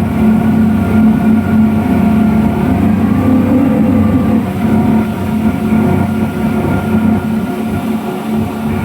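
Speedboat's twin 250 hp engines running steadily under way, a loud, even drone with a strong low hum.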